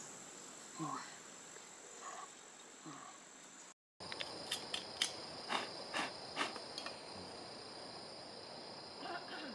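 Insects call steadily in a high, even tone, with a few soft wordless 'oh' sounds from a man early on. After an abrupt cut just under four seconds in, a quick run of sharp clicks and scrapes from hands handling a small dug-up metal object and soil.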